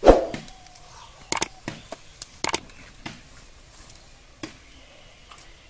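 A splash as a hooked fish is yanked out of the pond on a bamboo rod's line, followed by a scatter of sharp clicks and knocks, in pairs about a second apart, as the catch is handled at the water's edge.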